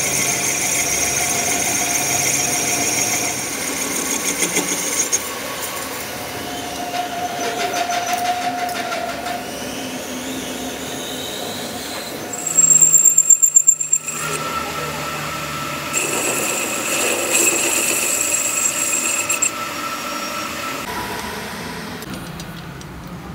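Metal lathe turning a steel rear-axle flange while the carbide tool bit faces it, the cut giving off high, steady squealing tones over the machine's running noise. A louder, harsher stretch of about a second and a half comes near the middle.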